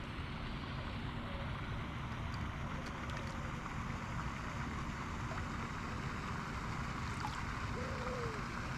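Steady rushing and splashing of water from a pond fountain, with a low rumble of wind on the microphone.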